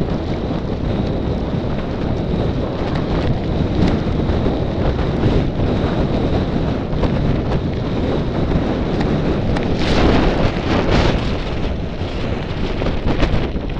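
Wind buffeting the microphone of a camera moving along a road, a heavy, steady rumble with louder gusts about ten seconds in and again near the end.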